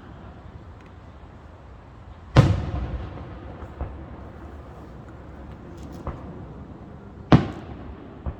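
Aerial fireworks shells bursting: a loud boom about two and a half seconds in that rumbles away, a couple of fainter thuds, and another loud boom near the end.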